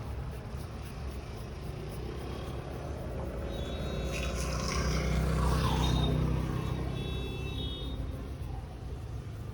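Road traffic: a motor vehicle passes close by, its low engine rumble swelling to a peak about six seconds in and then fading.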